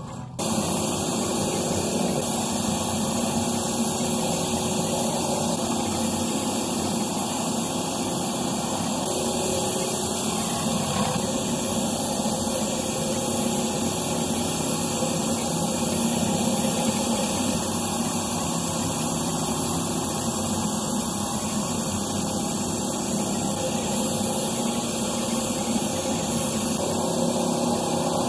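Pressure washer's rotary surface cleaner running over concrete: a steady rush of high-pressure water from the spray bar spinning under its round housing.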